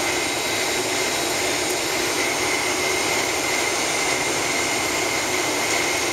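Steady cabin noise inside a Boeing 767-400 taxiing on its jet engines: an even hiss and whine with a thin, steady high tone running through it.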